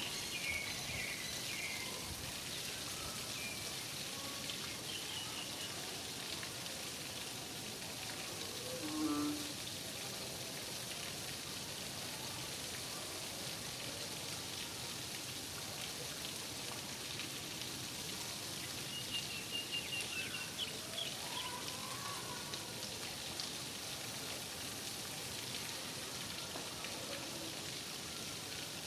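Steady rain falling, an even hiss, with a few short bird chirps scattered through: some just at the start, one about nine seconds in, and a small cluster around twenty seconds in.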